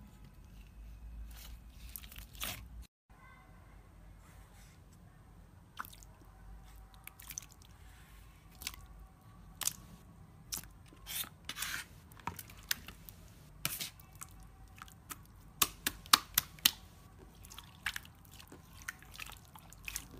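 Slime being pressed and stretched by hand: soft wet squishing with many sharp sticky clicks and pops, coming thicker and louder about three-quarters of the way through.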